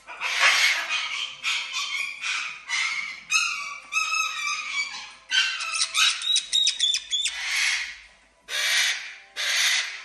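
Caique parrots screeching: a loud run of harsh shrieks, with quick, chattering calls in the middle.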